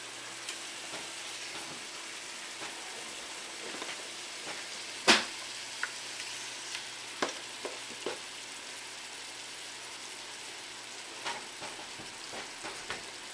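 Coconut milk sauce simmering in a frying pan with a steady sizzle as pieces of salted mackerel are laid into it. There is one sharp knock about five seconds in, and several lighter taps follow.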